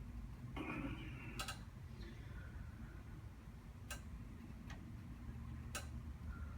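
A brief rustle of hands and clothing against a patient's back during deep-pressure massage of the lower-back muscles, then four sharp, faint clicks spaced across a few seconds, over a low steady hum.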